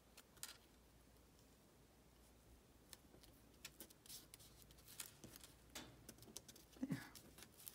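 Near silence with faint, scattered light ticks and soft rustles of small paper pieces being handled and pressed down by hand.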